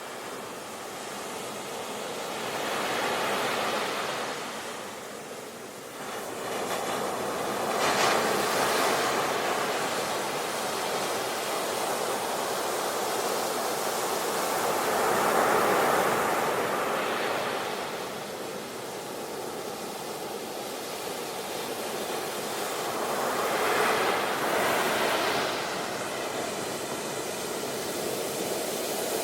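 Ocean waves breaking on a beach: a steady wash of surf that swells and recedes, with about four louder breaking waves several seconds apart.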